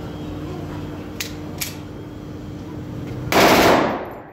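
Test-firing of a newly made pistol into a sand backstop: two faint clicks, then a single loud gunshot about three and a half seconds in that rings briefly and dies away.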